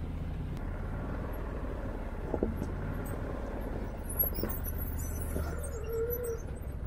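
Can-Am Maverick Sport 1000's V-twin engine running steadily at low speed, with two short knocks about two and a half and four seconds in.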